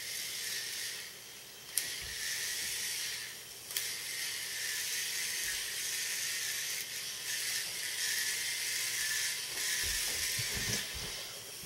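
Small battery motor and plastic gears of a K'nex robot whirring steadily, switched on just as the sound starts, with brief dips in level and two sharp clicks about two and four seconds in.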